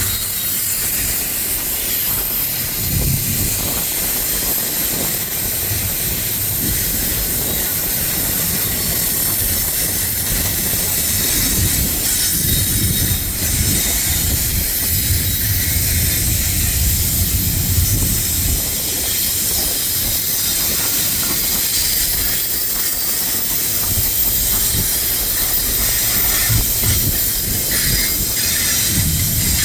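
Train cars rolling past close by: wheels running on the rails with a steady hiss and irregular low thumps.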